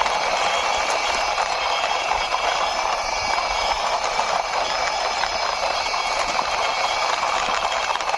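Small diecast toy mixer truck's wheels rolling steadily along a hard surface as it is pushed by hand, a continuous gritty whir.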